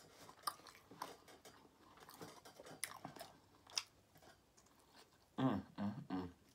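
A person biting and chewing tender barbecue ribs, close up: soft wet mouth clicks and smacks. A short hummed voice sound comes about five and a half seconds in.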